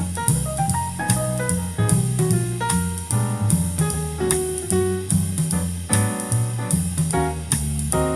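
Instrumental jazz-like music with piano, bass and drum kit, played back through Logitech Z200 2.0 PC speakers and picked up by a microphone in the room.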